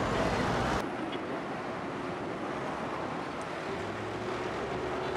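Steady outdoor background noise, vehicles and wind on the microphone. It changes abruptly about a second in to a quieter, steadier rumble, and a faint steady hum joins near the middle.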